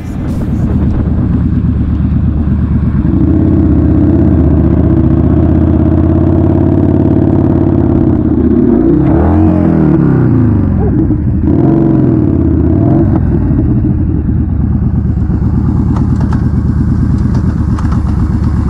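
Motorcycle engine running under way, with the revs dropping and climbing again twice around the middle of the ride.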